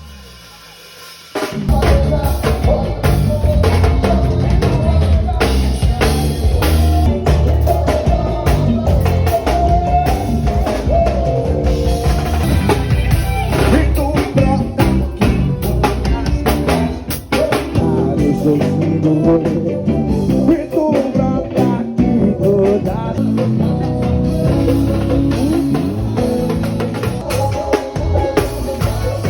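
Live band playing amplified music with a drum kit driving the beat, snare and kick prominent. After a brief quieter moment at the start, the full band comes in about a second and a half in and plays on steadily.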